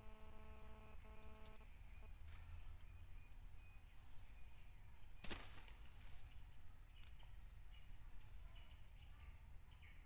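Faint outdoor ambience with a steady high-pitched insect drone, like crickets. A pitched call with a couple of short breaks is heard in the first second and a half, and a single sharp tap about five seconds in.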